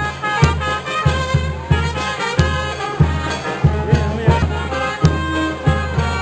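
Brass band playing a tune with trumpets over a steady low drum beat, about one and a half beats a second.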